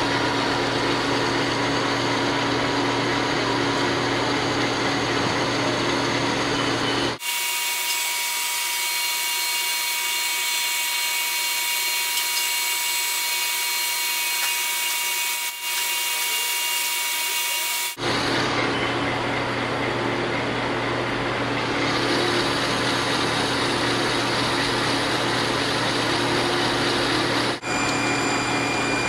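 Metal lathe running, turning down a steel shaft with the cutting tool. Through the middle stretch, from about 7 to 18 seconds, the footage is sped up and the sound becomes a thin, high-pitched whine. It returns to the fuller running sound after a cut.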